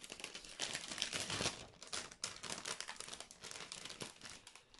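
Thin white wrapping paper rustling and crinkling as it is handled over a cardboard box, busiest in the first second and a half, then softer.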